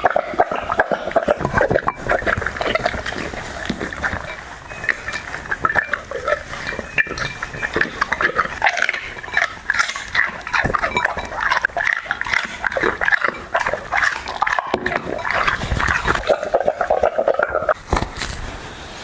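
A dog eating noisily: a fast, irregular run of chewing and smacking sounds that eases off near the end.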